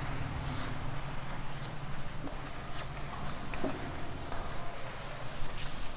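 Repeated scratchy strokes of writing, as wave shapes are drawn by hand on a board.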